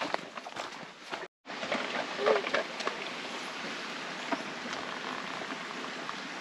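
Footsteps crunching on a dry, leaf-covered dirt trail, then, after a brief cut, a steady hiss of running water from a small creek with a few faint footfalls.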